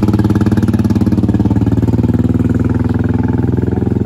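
A motor vehicle engine running loud and steady close by, with a rapid, even firing pulse.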